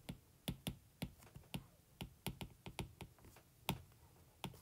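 Faint, irregular taps and clicks of a stylus on a tablet screen during handwriting, a few a second, with two louder taps near the end.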